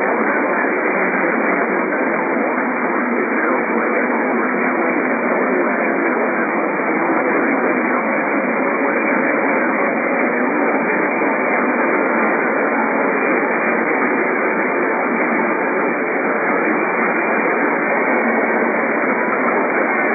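Steady radio static: an even hiss through a receiver's narrow audio band, with no voice or alert tones.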